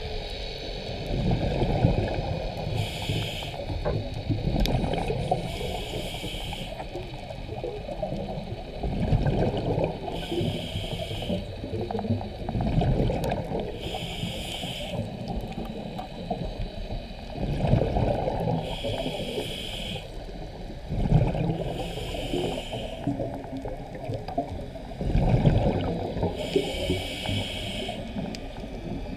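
A scuba diver breathing through a regulator underwater. A short hiss on each inhale comes about every four seconds, seven times in all, and a low bubbling gurgle of exhaled air falls between them.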